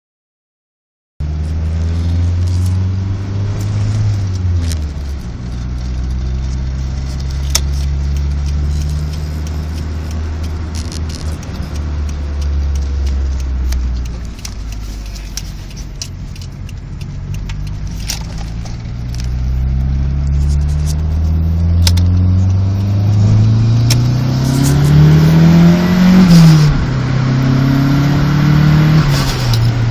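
Nissan Skyline DR30's FJ20 2.0-litre DOHC four-cylinder engine running smoothly, its misfire cured by a new ignition coil and module. It idles steadily after settling lower a few seconds in, then the revs climb slowly to a peak about two-thirds of the way through, drop back, and rise briefly once more near the end.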